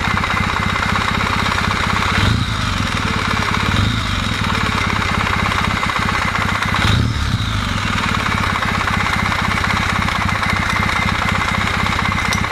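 Kawasaki W650 air-cooled parallel-twin engine idling, its throttle blipped briefly twice, about two and seven seconds in. The warm engine is being checked for a knock that the owner traces to the camshaft drive gear.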